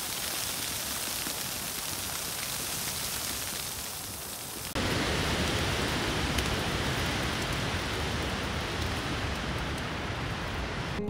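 Wet snow falling, a steady rain-like hiss. About five seconds in it gives way to strong wind, louder and with a deeper rumble.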